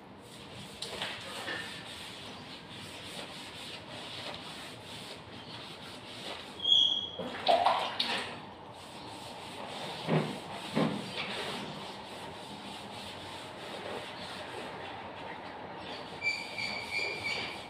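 Continuous scraping and rubbing of old wallpaper being stripped from a wall, with a few louder scrapes in the middle and two short high squeaks, one about seven seconds in and one near the end.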